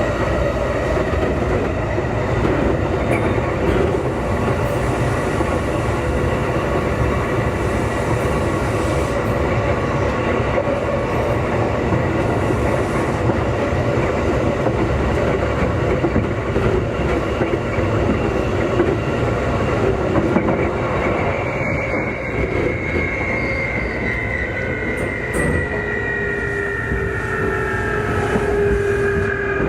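Running noise inside a Keikyu 2000 series electric train car: wheels rumbling on the rails with a steady motor whine. About two-thirds of the way through, the motor whine starts falling in pitch as the train slows down.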